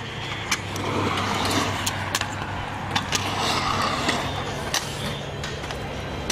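Stunt scooter wheels rolling steadily across a concrete skatepark bowl, with several sharp clicks and knocks from the scooter as it rides the transitions.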